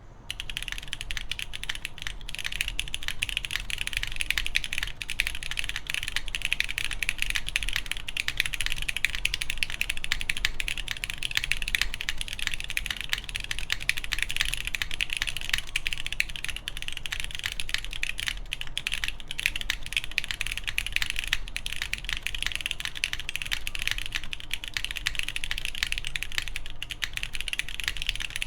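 Continuous fast typing on a mechanical keyboard with lubed Cherry MX2A Brown tactile switches, a polycarbonate plate and GMK keycaps: a dense stream of keystroke clacks.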